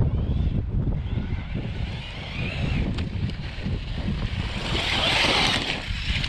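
Wind buffeting the microphone with a steady low rumble, over the high whine of an RC car's Hobbywing Max6 1650kv brushless motor rising and falling with throttle. About five seconds in, a louder rush of hiss swells and fades.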